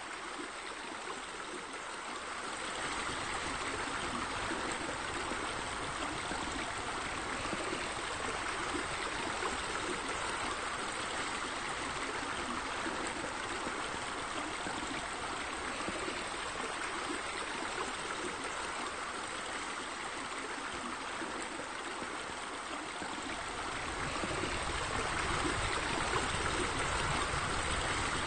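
Steady rushing of running water, like a stream, with no distinct splashes; it grows a little louder about two seconds in and again near the end.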